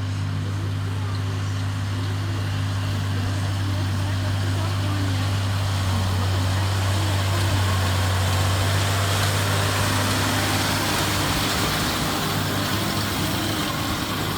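Farm tractor engine running steadily as it pulls a round baler through the windrow at close range, the machinery noise growing louder toward the middle and easing off near the end.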